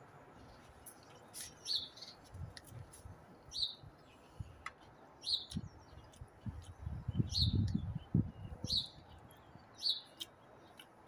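A garden bird chirping repeatedly, one short high chirp every second or two. Under it are low, muffled close-up eating noises of chewing and cutlery, loudest about seven to eight seconds in.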